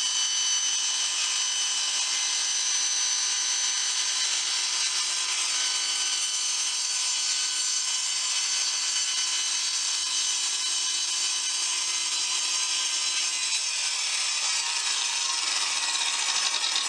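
Table saw running with a steady high-pitched whine while its blade is raised up through a plywood template from underneath, cutting a slot.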